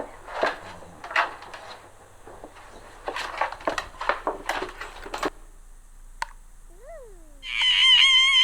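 Hand-made cartoon Foley effects: a quick run of clatters, rustles and knocks, then a click and a short whistle that slides up and back down, followed near the end by a loud, high, sustained wavering tone.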